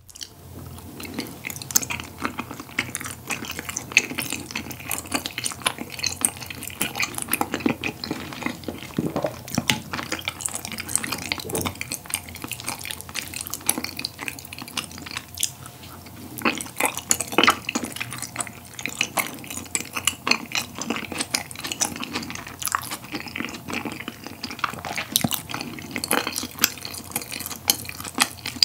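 Close-miked chewing of a sauce-coated dumpling and tteokbokki rice cakes: a dense, irregular run of wet, sticky mouth clicks and squelches.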